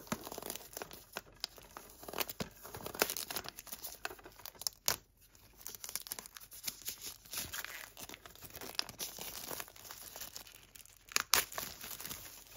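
Plastic shrink-wrap being torn and crumpled off a Blu-ray steelbook case: irregular crinkling and crackling, with two sharper snaps, one a little before halfway and one near the end.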